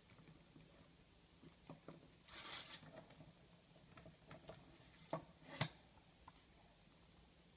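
Plastic CD jewel case being handled and opened: faint light clicks, a short rustle about two and a half seconds in, then two sharper plastic clicks a little after five seconds, the second the loudest.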